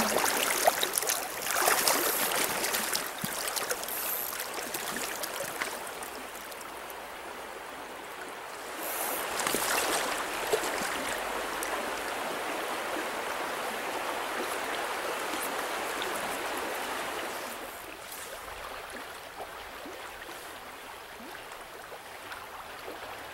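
Stream water rushing over a shallow riffle, a steady even wash of sound that swells for a stretch in the middle and eases toward the end.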